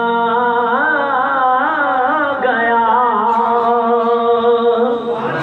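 A singer holds a long wordless note of an Urdu devotional kalam, breaking into a wavering melismatic run near the middle. A steady held tone continues beneath the voice.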